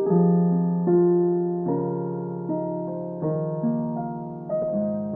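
Slow, gentle piano music, single notes and chords struck one after another and each fading away.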